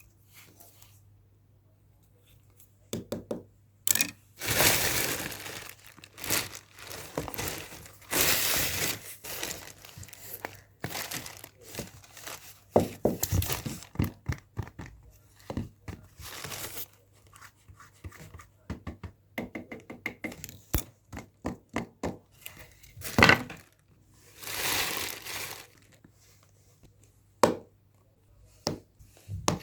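Art-supply packaging being handled and opened close to the microphone: crinkling and tearing of wrapping in a few longer rustles, among many sharp taps, clicks and thunks as items are handled and set down.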